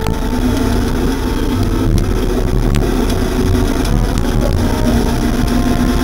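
Motorcycle engine running steadily at cruising speed, heard from a camera mounted on the bike, with a constant low rumble of engine and road noise and a steady pitch that barely changes.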